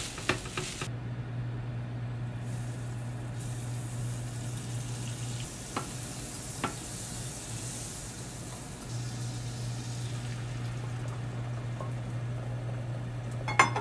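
Butter sizzling as it melts in a nonstick frying pan on an induction hob, over the hob's low steady hum. A few light knocks of utensils on the pan, and a louder clatter of chopsticks near the end.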